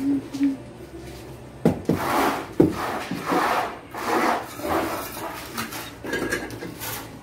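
Irregular scraping and rubbing of hard building material, with a couple of sharp knocks about two seconds in, as tile and mortar work goes on.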